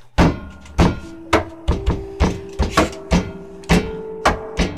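Music starting abruptly with a hard hit: a percussive beat of strikes about twice a second, with lighter hits between, over a held chord.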